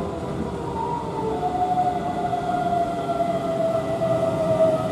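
Keihan 9000 series electric train arriving and slowing: its motors whine in several tones that fall slowly in pitch as it brakes, over the rumble of wheels on rail.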